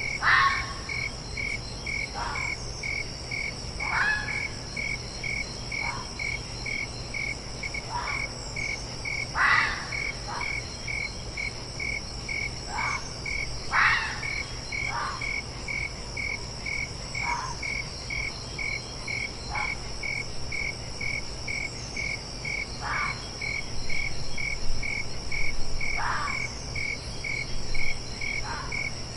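A fox giving short, falling barks every second or two, about fourteen in all, over crickets chirping steadily about three times a second.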